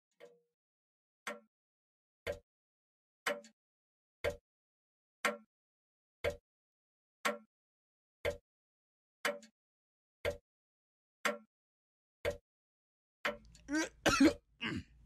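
Grandfather clock ticking, one sharp tick a second, evenly spaced. Near the end a man's voice breaks in with a short throaty sound over the ticks.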